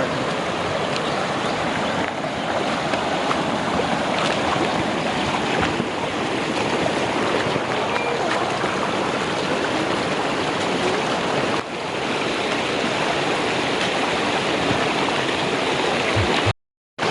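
Running water of a stream or waterfall rushing steadily. Near the end it cuts off abruptly to a moment of silence.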